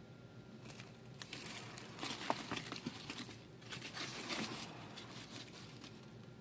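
Cardboard egg flat crinkling and rustling as it is handled in a plastic tub, in two spells, about two seconds in and again about four seconds in.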